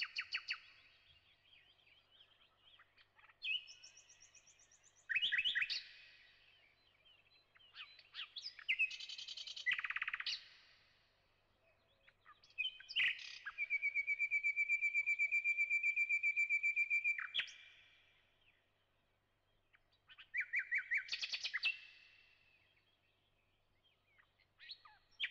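A small songbird singing in separate phrases: fast trills, short chirps, and one long steady whistled note held for about four seconds in the middle, with short pauses between phrases.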